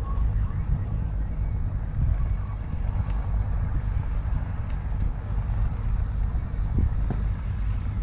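Wind buffeting the microphone: a steady low rumble that rises and falls unevenly.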